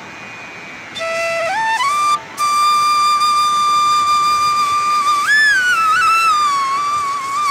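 Background music: a solo flute melody that comes in about a second in, climbs in a few quick steps to a long held note, breaks off briefly, then adds a short wavering flourish before holding the note again.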